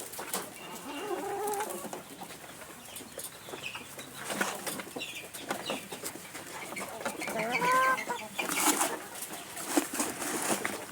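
Chickens clucking, with a few pitched calls in the first two seconds and a louder call about eight seconds in, among scattered short sharp taps.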